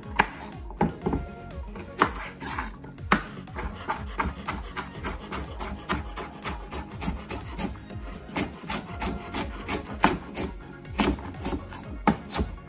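Chef's knife chopping a raw carrot on a bamboo cutting board: a quick, uneven run of sharp knocks as the blade goes through the carrot and strikes the wood, about three a second.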